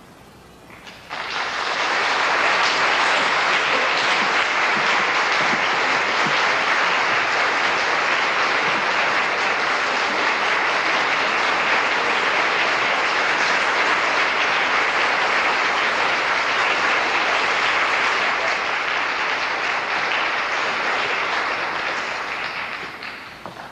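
Concert audience applauding, starting about a second in after the orchestra's last chord dies away, holding steady and fading out near the end.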